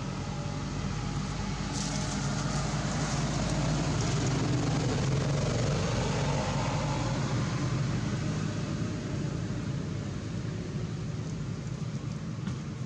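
Steady low rumble with hiss that swells to its loudest around the middle and eases off toward the end.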